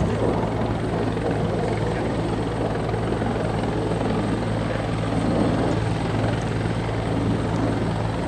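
Bell 412 helicopter running steadily, its twin turbines and four-blade rotor giving a constant, fast rotor chop with a low hum.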